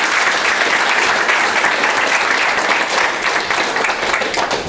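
Audience applauding, the clapping beginning to thin out near the end.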